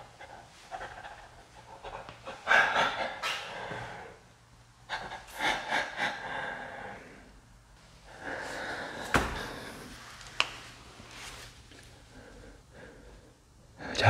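A man breathing hard close to the microphone, in several bursts of a second or two each, with two sharp clicks near the middle.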